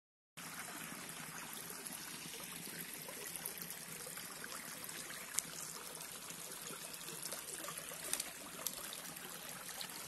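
Small shallow stream trickling over rocks in a steady, even rush, with a few short sharp clicks about halfway through and again near the end.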